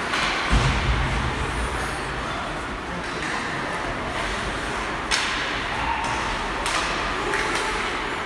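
Ice hockey rink ambience: skates scraping and hissing on the ice during play. A heavy low thump comes about half a second in, and two sharp cracks of hockey play come about five and seven seconds in.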